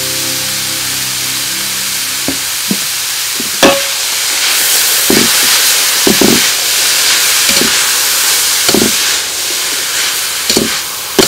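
Shredded cabbage and peanuts sizzling in a hot metal wok, with a spoon stirring and knocking against the pan about once a second. The sizzle grows louder about four seconds in as the stirring gets going.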